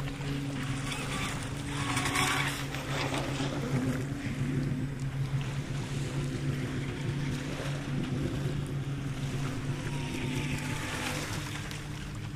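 Wltoys WL913 brushless RC speedboat running at speed out on the water, with small waves washing on the sand. A steady low hum sits underneath.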